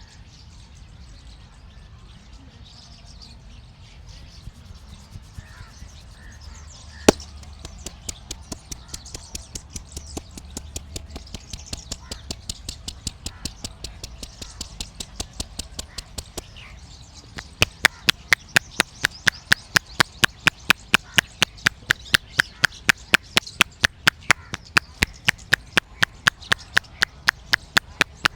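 A barber's hands striking the head in a rhythmic percussion massage, about three sharp slaps a second. It starts soft, with one loud single crack about seven seconds in, and becomes much louder about two-thirds of the way through.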